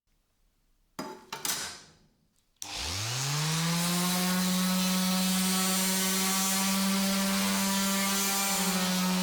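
A few clicks and handling noises, then an electric power tool's motor is switched on. It spins up within about a second and then runs at a steady, even speed with a constant hum.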